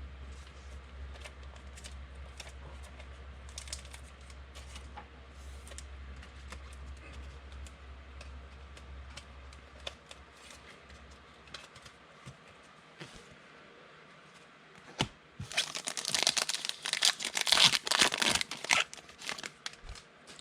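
Plastic trading card pack wrapper crinkling and tearing open, loudest for a few seconds near the end. Before it come faint clicks and rustles of cards being handled over a low hum, which stops about halfway through.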